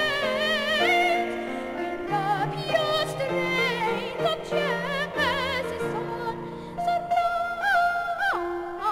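Boy treble soloist singing a slow sacred aria with a wide vibrato, over a sustained instrumental accompaniment of held chords.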